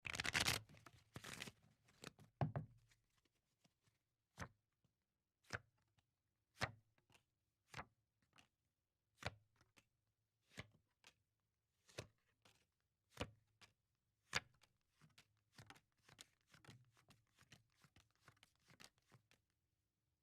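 A deck of playing cards shuffled in a few quick rustling bursts, then dealt one card at a time, each landing with a short snap about once a second. Near the end come lighter, quicker card ticks.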